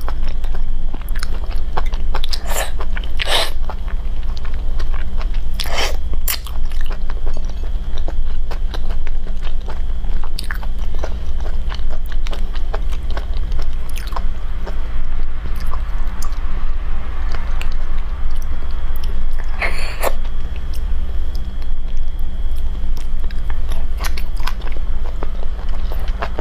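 Close-miked eating of spicy shellfish: wet biting and chewing with many small clicks, and a few louder wet sucks, over a steady low hum.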